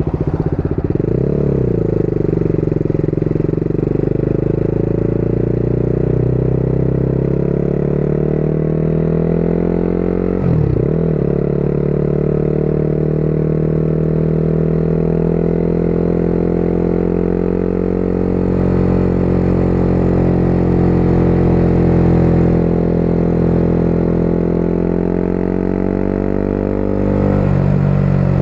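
Motorcycle engine under way at a steady road speed, its pitch dipping sharply and recovering twice, about a second in and again near the middle, then holding fairly steady.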